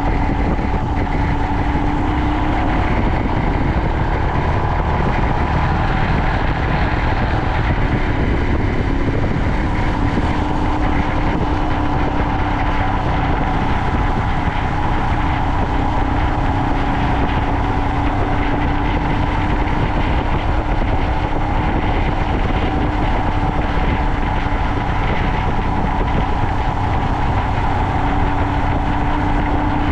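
Royal Enfield Himalayan single-cylinder motorcycle running at a steady cruising speed: an even engine drone over a steady rush of road and wind noise, unchanging throughout.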